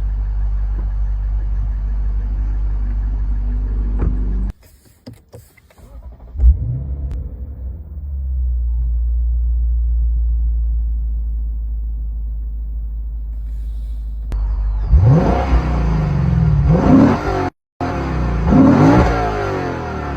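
Lexus IS500's 5.0-litre V8 running with a steady low exhaust rumble, a sharp rev blip about six seconds in, then a steady drone. In the last third it accelerates hard several times, the engine note climbing in pitch with each pull. The sound cuts out briefly twice.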